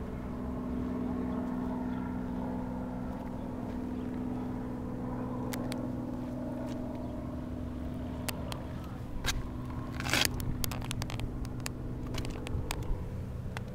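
A steady low mechanical hum, unchanging in pitch. Scattered sharp clicks begin about halfway through, with a short scrape about ten seconds in.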